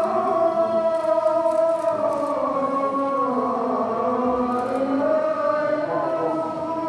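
Voices chanting shalawat, an Islamic devotional chant, together as one slow melody in long held notes that drift gently down and back up in pitch.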